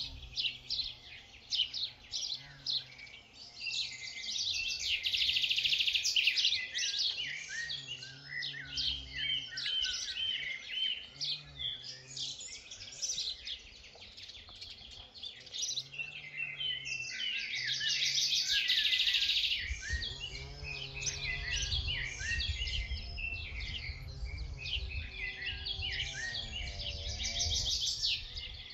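Chorus of wild songbirds singing, many chirps and fast trills overlapping throughout. A low rumble runs beneath them in the second half.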